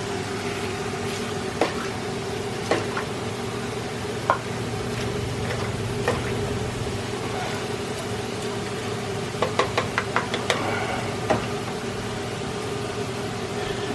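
Potatoes and cabbage being stirred in a pot, the utensil knocking against the pot now and then, with a quick run of knocks a little after the middle. Under it runs the steady, multi-tone hum of an induction cooktop heating the pot.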